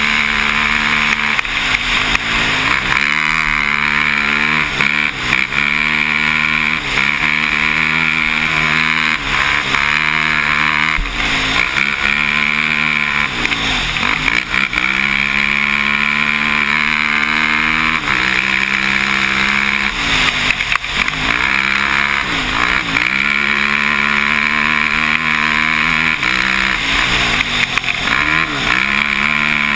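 Can-Am ATV engine running hard under load, its pitch dipping and climbing back again every couple of seconds as the throttle is eased and reopened, over a steady rushing noise.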